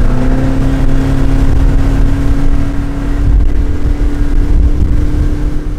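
Boat engine pulling the boat up to running speed, a loud steady drone whose pitch climbs slowly as it gathers speed.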